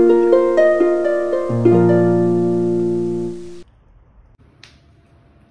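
Short intro music of plucked string notes ringing over one another, with a deeper note joining about a second and a half in. The notes cut off suddenly about three and a half seconds in, leaving faint room hiss and one brief click.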